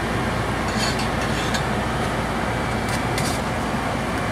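Steady rushing hum of a kitchen fan running, with a few faint light clicks about a second in and again near three seconds.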